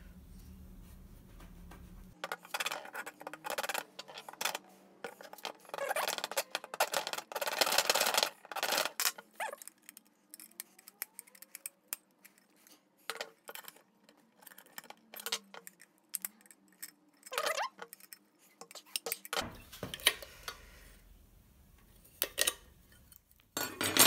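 Hand tools working the sheet-steel frame of a microwave magnetron: a stretch of rapid metal scraping and clinking, then scattered sharp metallic clicks and clinks as the frame is pried with pliers.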